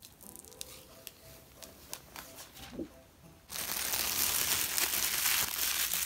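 Clear plastic wrapping being handled, with scattered light crinkles and clicks. About three and a half seconds in it is crumpled, and a loud, dense crinkling runs on to the end.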